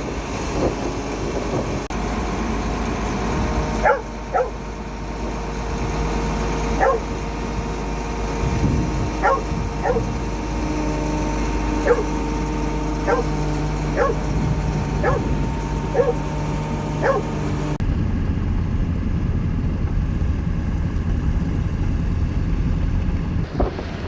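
A dog barking in short, separate barks, about a dozen of them over several seconds, over the steady hum of a running engine. The barking stops partway through, and the engine rumble and wind noise carry on.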